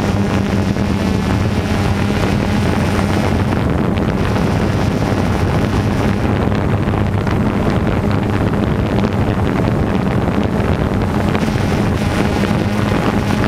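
DJI Phantom 2 quadcopter's motors and propellers giving a steady hum with a strong low drone, heard from on board the aircraft, with wind rushing over the microphone.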